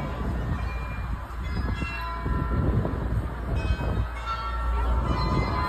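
The bells of the Glockenspiel in Munich's New Town Hall tower playing a tune: single bell notes strike one after another and ring on. A steady low rumble runs underneath.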